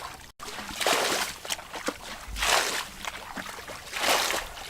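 Water sloshing and splashing in three surges about a second and a half apart, after a brief dropout at the very start.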